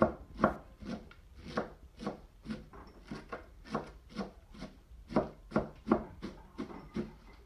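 Knife chopping shredded cabbage on a wooden tabletop, crisp knocks at about two a second in an uneven rhythm.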